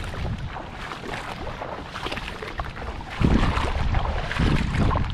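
Wind buffeting the microphone, a low rumble that grows louder about three seconds in.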